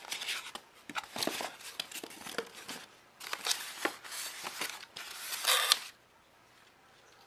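Paper and packing being handled: a folded paper leaflet rustling and crinkling, with objects rubbing and knocking in a styrofoam packing tray. It comes in several bursts, the loudest just before it stops about six seconds in.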